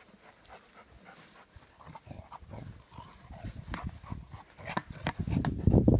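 A young Rottweiler worrying an old car tyre: a run of dull thumps, scuffs and sharp clicks that grows louder, loudest in a dense low burst near the end.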